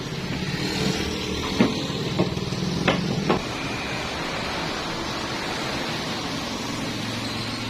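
Welding machine running with a steady electrical hum and hiss, with four sharp clicks in the first few seconds.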